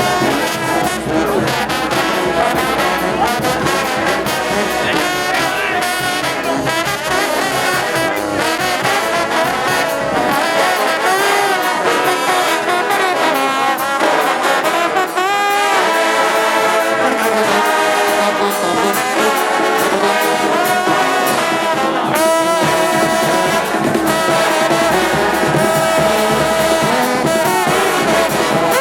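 Mummers brass band playing loudly, trombones and trumpets carrying held, shifting notes over a steady percussive beat.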